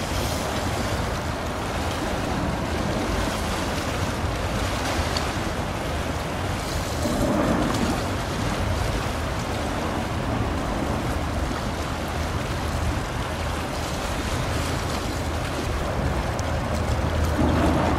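Japan Coast Guard patrol ship Fuso passing: a steady low rumble under the wash of its bow wave and the choppy water, with wind.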